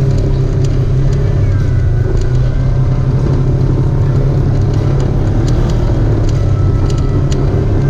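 Off-road vehicle engine running with a steady low drone, with scattered light ticks over it.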